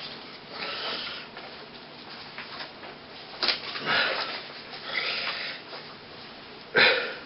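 A performer making funny noises with breath and voice: a series of short, breathy, hissing bursts spread over several seconds, with pauses between them.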